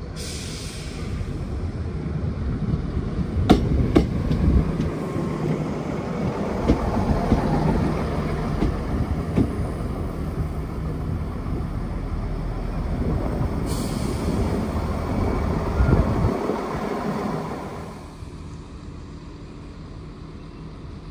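Two coupled Chiltern Railways Class 168 diesel multiple units running along the platform: a steady rumble of engines and wheels with a few sharp clicks a few seconds in. The sound drops away sharply near the end.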